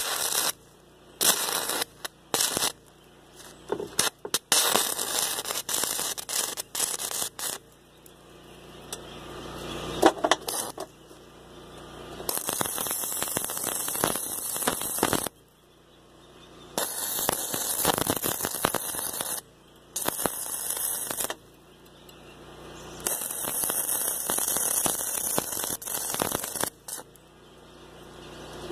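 Stick welding arc crackling as steel pipe joints are tack-welded: several brief strikes of a few fractions of a second at first, then a series of longer welds of two to four seconds each, every one cutting off sharply when the arc is broken.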